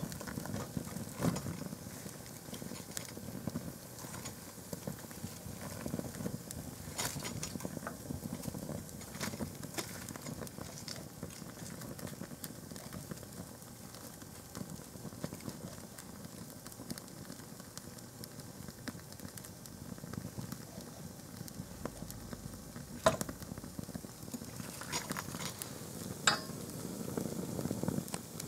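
Open fire crackling on a fireplace grate as paper and a canvas plimsoll burn, over a low rush of flame. Sharp pops and cracks break out now and then, the loudest one late on.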